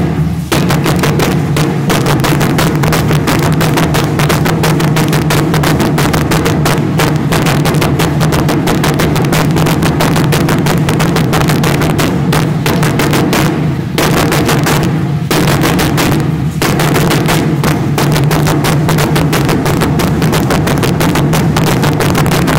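Fast, steady drum beat accompanying an Aztec-style dance; it breaks off briefly three times a little past the middle.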